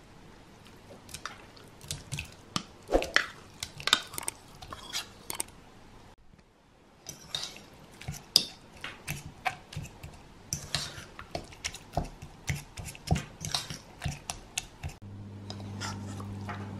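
Metal fork clinking and scraping against a ceramic bowl in quick, irregular taps while tuna is mashed and stirred into beaten egg. Near the end a steady low hum comes in under the clinks.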